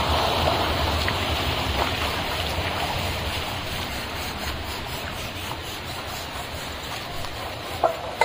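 Steady rush of flowing water in a mountain stream, with a short knock near the end.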